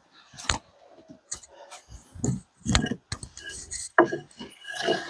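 A series of irregular knocks and clunks, the loudest about four seconds in.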